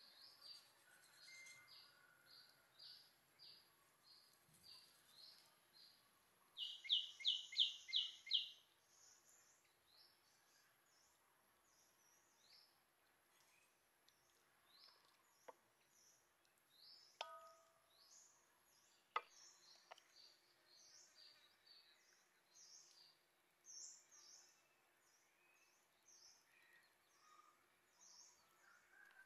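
Faint birds chirping outdoors in short repeated calls, with a louder run of about six quick notes around seven seconds in. A few faint clicks come in the middle, one with a brief ring.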